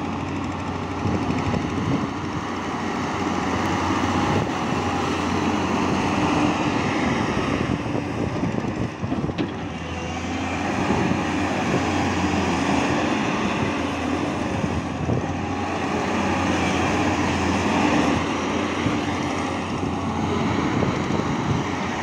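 Tata Hitachi 210 Super Plus crawler excavator's diesel engine running steadily close by while the boom and arm work, its level rising and falling a little with the load.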